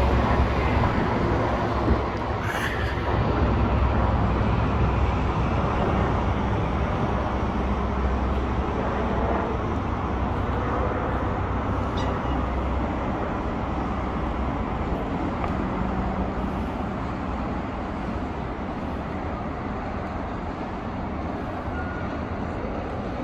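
Twin-turbine Puma helicopter's low rotor rumble, loudest at first and slowly fading as it flies away.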